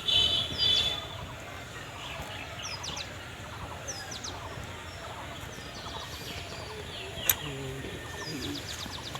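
Small birds chirping in short, repeated high calls over steady faint background noise, with one sharp click about seven seconds in.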